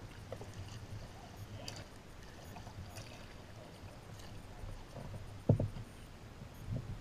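Kayak paddling: a double-bladed paddle dipping into the water stroke after stroke, with faint splashes and water moving along the hull. A loud thump about five and a half seconds in, with a few smaller knocks near the end.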